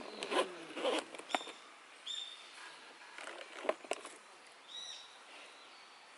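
A bird giving short, high calls three times, near one, two and five seconds in, over rustling and a few sharp clicks of something being handled in the first second or so and again around four seconds.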